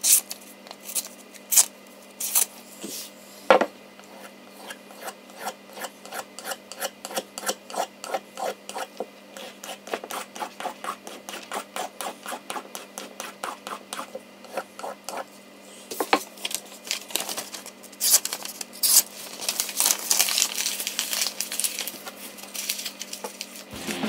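Small Victorinox pocketknife blade being stropped on a wooden paddle strop loaded with polishing paste to finish a dulled edge: a run of short rubbing strokes, about two to three a second, coming faster and louder in the last third.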